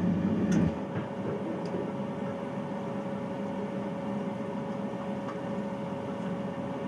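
Bathroom boiler running as a steady hum with a constant tone. A louder low rumble cuts off just under a second in, and a few faint ticks come through.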